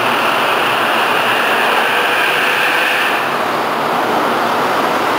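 Kintetsu limited express train running past a station platform: a steady rush of wheels and running gear, with a high hiss that eases about three seconds in.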